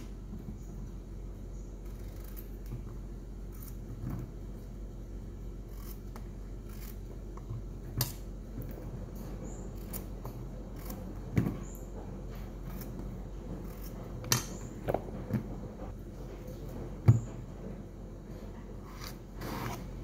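Kitchen knife cutting zucchini on a wooden cutting board: irregular short cuts and taps, with a few sharper knocks of the blade and vegetable on the board, the loudest about three-quarters of the way through.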